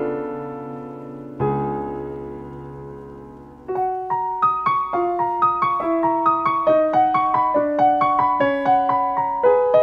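Soft piano music. Two held chords ring out and slowly fade, then from about four seconds in a melody of single notes runs on steadily at about three notes a second.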